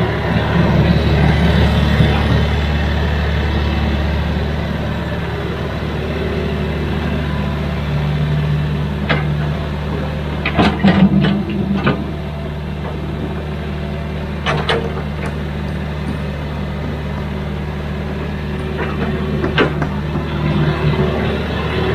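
Excavator's diesel engine running steadily, with a cluster of sharp metallic clanks about halfway through and another single clank near the end.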